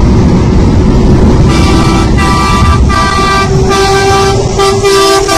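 Heavy rumble of a truck's engine and tyres running close beside a car. From about a second and a half in, a vehicle horn sounds in several blasts over it.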